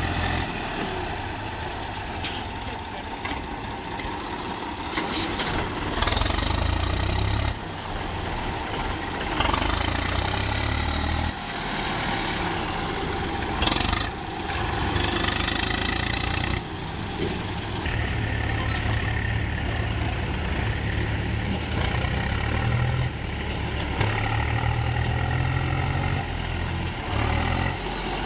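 Swaraj 735 FE tractor's three-cylinder diesel engine labouring under load as it hauls a fully loaded sand trolley through soft, rutted sand, its note rising and falling repeatedly with the throttle.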